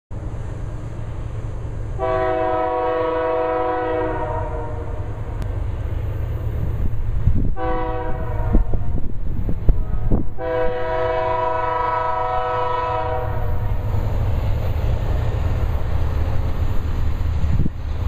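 Multi-chime air horn of an approaching diesel freight train's lead locomotive, a BNSF GE C44-9W Dash 9, sounding a long blast, a short one, then another long one. Under the horn runs the low rumble of the diesel engines, growing louder as the train nears.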